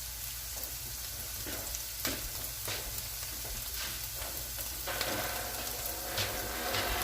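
Food frying and sizzling in a hot pan, with a few light clicks of a utensil against the pan. A faint steady hum joins about five seconds in.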